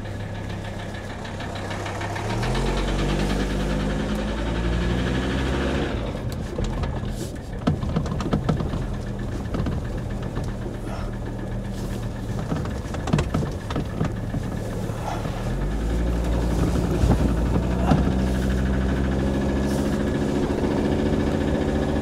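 Mercedes OM617 five-cylinder diesel of a 1981 300TD wagon pulling under load, its pitch rising, dropping about six seconds in, then climbing again near the end, with scattered knocks. The engine has a steady knock that the owner could not trace to a single injector.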